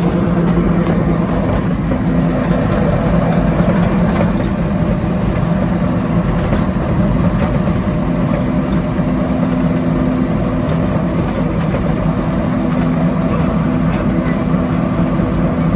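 Vehicle engine running steadily under a constant rush of road and wind noise. Its low hum shifts a little in pitch a few times.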